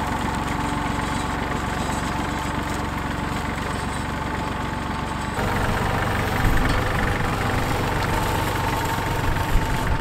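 Tractor engine running steadily while it pulls a Ferguson plough cutting a shallow furrow through grassland. About five seconds in, the sound changes to a deeper, louder engine note.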